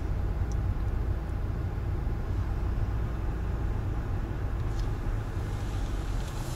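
A BMW car moving slowly, heard from inside the cabin: a steady low rumble of engine and tyre noise.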